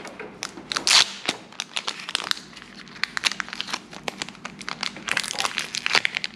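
Foil wrapper of a Pokémon card booster pack crinkling and crackling as it is torn open and handled by hand: a dense run of sharp crackles, loudest about a second in.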